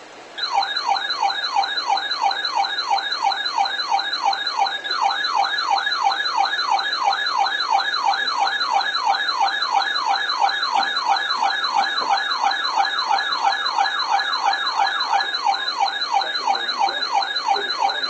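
Weather radio receiver sounding its alert siren, which signals an incoming warning: a loud, fast-repeating whooping tone of about two and a half sweeps a second. It starts about half a second in and cuts off at the very end.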